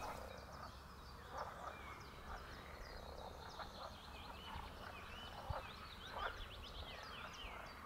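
Faint edible frogs (pond frogs) croaking every second or so, with many short high peeping calls over them, thickest in the middle.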